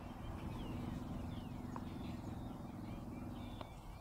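A faint, steady low hum of a distant motor that stops near the end, with a few faint bird chirps over it.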